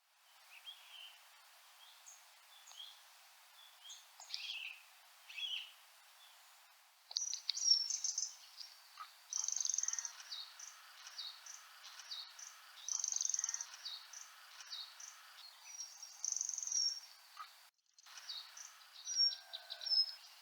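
Small birds calling over a faint hiss: scattered short high notes at first, then from about seven seconds in a run of louder, drawn-out high whistled notes every few seconds, ending with a few short falling chips.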